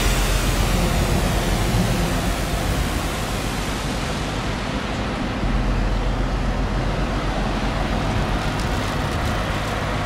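Steady rushing noise of riding an electric rental scooter: wind on the microphone and wheels rolling over pavement.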